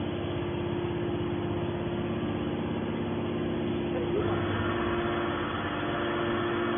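Hydraulic steel can baler's motor and pump running with a steady hum at one pitch; about four seconds in the sound grows brighter and slightly louder, as the machine takes up a load.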